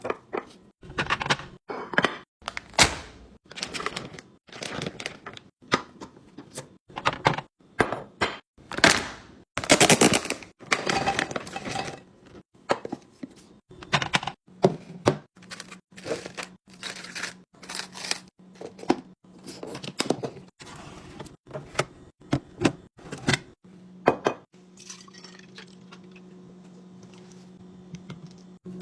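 Kitchen containers and dishes being handled, setting down one after another with repeated knocks, clinks and clatters. A steady low hum starts near the end under quieter handling.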